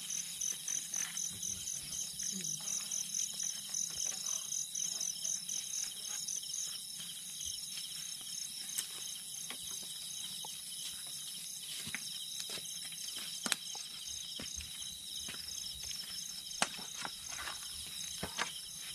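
Night insects chirping in a steady pulsing rhythm of about five pulses a second, over a constant high-pitched buzz. The pulsing is strongest for the first several seconds and then fainter. A few scattered faint clicks are heard.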